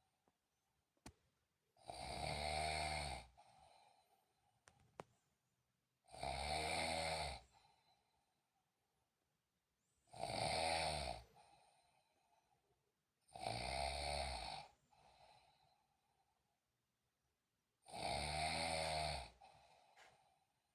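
A person snoring: five loud, drawn-out snores, each about a second and a half long, coming roughly every four seconds, with faint breathing between them.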